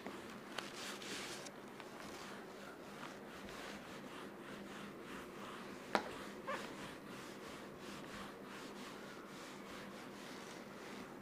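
Duster wiping across a marker board in repeated strokes, with one sharp knock about six seconds in.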